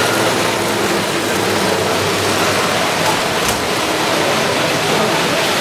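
Model train running on a layout: an electric locomotive pulling passenger coaches, its wheels rolling on the track in a steady, even rushing noise.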